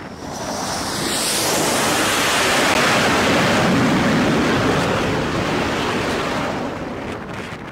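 Twin-engine F/A-18 jet landing on an aircraft carrier deck. The jet noise builds over the first couple of seconds with a high sweep as it passes, stays loud through the middle, then fades as the jet slows to a stop.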